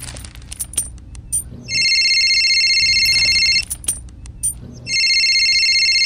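An electronic ringing tone sounds twice, each ring steady and about two seconds long, with a gap of just over a second between them. Light clicks are heard in the gaps.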